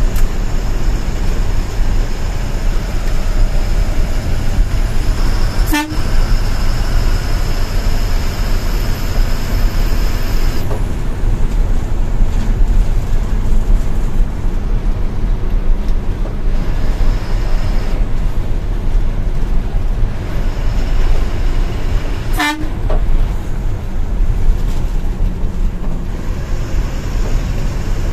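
Steady engine and road rumble inside the cabin of a TNSTC bus cruising on the highway. Two very short horn toots cut through it, about six seconds in and again about twenty-two seconds in.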